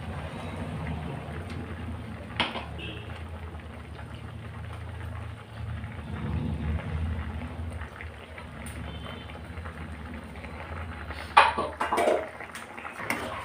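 Pan of snake-gourd kootu simmering on a gas stove: a steady low rumble with a bubbling hiss. There is a single click about two seconds in and a few sharp metal clanks near the end.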